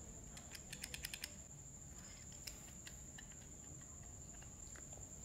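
Faint small plastic clicks and taps as a trigger switch and its wires are handled and pressed into an electric chainsaw's plastic housing, a quick run of them about a second in and a few single clicks after. A steady high-pitched whine sounds under them.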